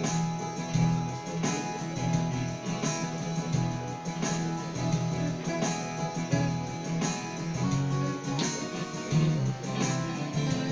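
Yamaha PSR-SX600 arranger keyboard playing demo music: a plucked, guitar-like voice over a steady beat.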